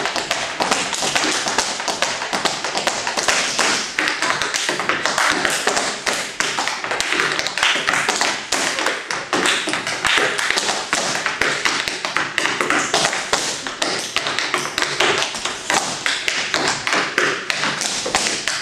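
Tap shoes striking a portable wooden tap board in fast, unbroken runs of sharp metal-on-wood taps, danced unaccompanied with no music.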